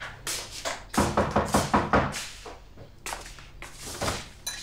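Knocking on a wooden front door: a quick, even run of about six raps just after a second in, then a few fainter knocks.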